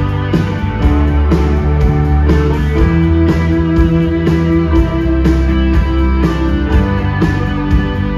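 Rock band playing an instrumental song intro live, with guitar, bass and drums on a steady beat.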